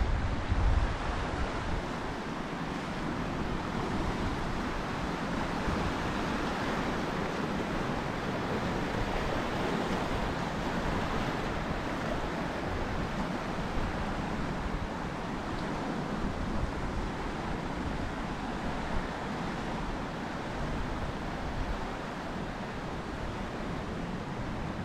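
Steady wash of small surf breaking among shoreline rocks and running up a sandy beach, with wind buffeting the microphone in low rumbles about a second in.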